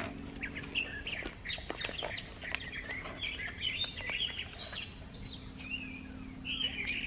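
Several small birds chirping and calling, with a faint steady low hum underneath.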